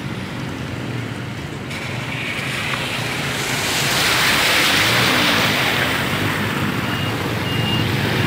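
Pickup truck driving through floodwater: a low engine hum under the hiss and wash of its tyres throwing up water. The hiss swells to its loudest about halfway through as the truck passes close, then eases.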